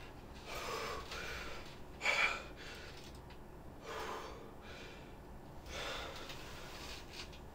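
A young man breathing hard and shakily, about five audible breaths with the loudest about two seconds in: panting in fright on waking from a nightmare.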